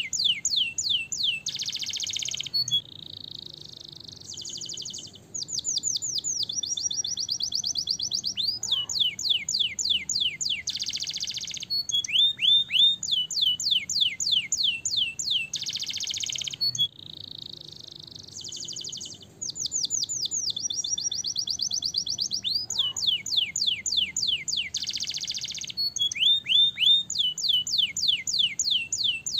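Domestic canary singing a long continuous song of rolling trills: runs of rapid, falling whistled notes at changing speeds, alternating with harsh buzzy phrases, with brief softer stretches between.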